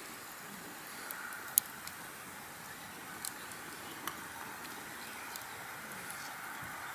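Pot of soup simmering over a wood campfire: a steady faint hiss with a few sharp clicks, the loudest about a second and a half in.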